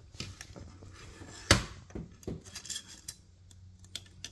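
Steel picks clinking and scraping inside an aluminium intake port of an LS7 cylinder head while fishing for a broken piston ring piece wedged at the valve. Scattered light taps and clicks, the sharpest about a second and a half in.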